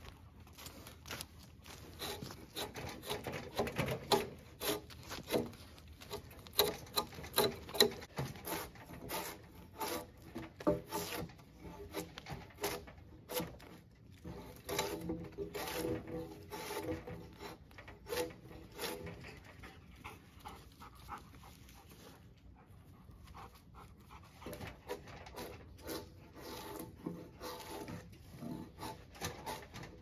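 A drawknife scraping bark and shavings off a log in short, uneven strokes, with a dog panting close by.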